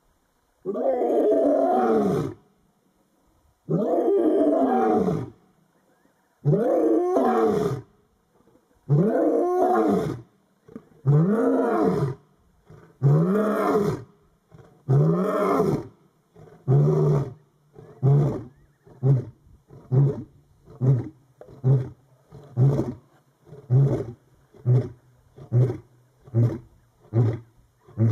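Male lion roaring a full bout. About seven long roars, each shorter than the one before, give way to a run of short grunts about one a second.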